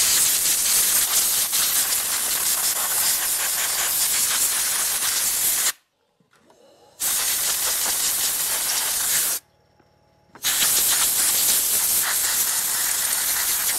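Compressed-air blow gun blasting dust and debris off a chainsaw: three long hissing blasts, the first lasting over five seconds, each cut off sharply with a short pause before the next.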